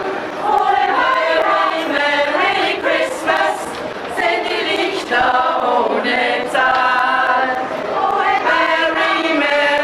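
A choir of mostly women's voices singing, with notes mostly held for about a second each.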